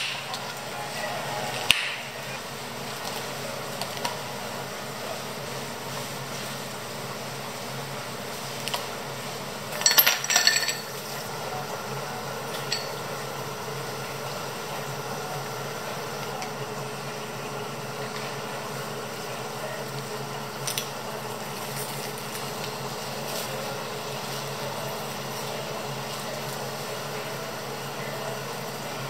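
Iced coffee drinks being made over a steady background hum: a clear plastic lid clicked onto a cup, a brief clatter of glass and ice about ten seconds in (the loudest sound), and milk poured from a carton over ice, with scattered light clinks.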